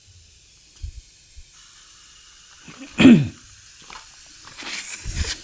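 LPG hissing as it is charged through a hose into a refrigerator's brazed pipework for a leak test. A short, loud burst with a falling pitch comes about three seconds in, and a stronger hiss comes near the end.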